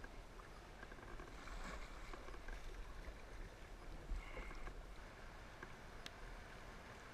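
Shallow, fast creek water rushing and splashing around a kayak's hull as it runs a riffle, with paddle strokes dipping into the water.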